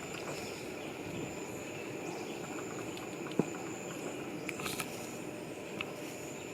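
Outdoor ambience with a steady high insect buzz over a low rumbling hiss, broken by a sharp click about halfway through and a few small ticks near the end.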